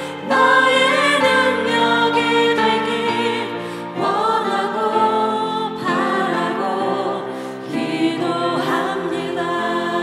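Women's choir singing a Korean worship song, the voices carried over long held low accompaniment notes.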